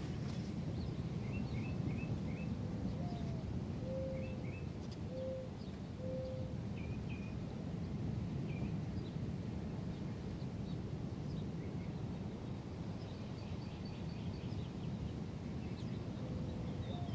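Birds calling over a steady low wash of distant surf: scattered short high chirps, and a few low cooing notes about a second apart, the first rising, a few seconds in and again near the end.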